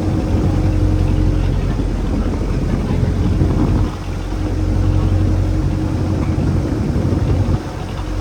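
Fishing boat's engine running steadily, dipping briefly in level twice, about four seconds in and again near the end.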